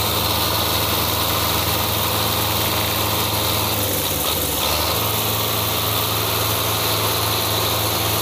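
Belarus 510 tractor's diesel engine running steadily at idle.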